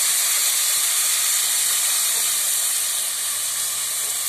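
Water poured a little at a time into hot, browned semolina in a wok, hissing and sizzling steadily as it hits the hot pan.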